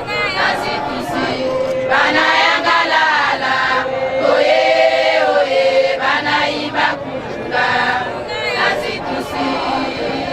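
A choir of voices singing together, with long held notes that waver in pitch.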